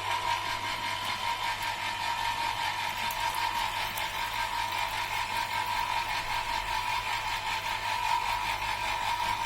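Electric citrus juicer running while a piece of orange is pressed onto its spinning reamer: a steady motor hum with a high, even whine.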